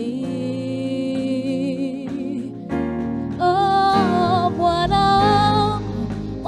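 Gospel song: a voice holds long notes with vibrato over sustained instrumental accompaniment, moving to a louder, higher held note about three seconds in.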